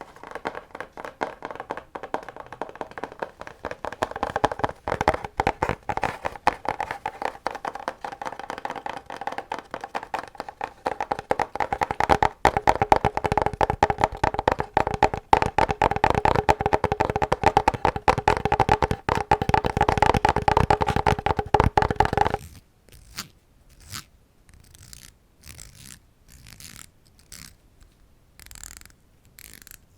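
Close-miked ASMR tapping and scratching on an object: fast, continuous taps with a steady ringing tone underneath for about twenty seconds, then it stops suddenly. A series of short, separate scratchy strokes follows.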